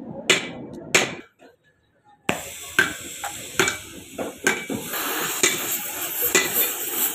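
Two sharp metallic hammer taps, then after a brief gap the steady hiss of a lit gas torch flame, with light metal taps about once a second over it.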